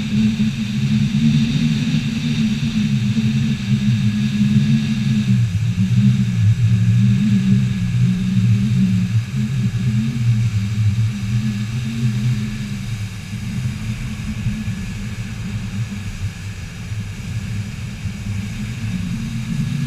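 A vehicle's engine running steadily while cruising, a continuous low hum that eases slightly in the second half.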